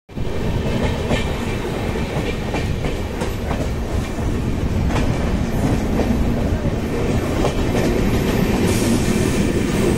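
Train running on the rails, heard from on board beside the open side of the train: a steady loud rolling rumble of wheels on track, with irregular sharp clicks and clacks of the wheels over rail joints.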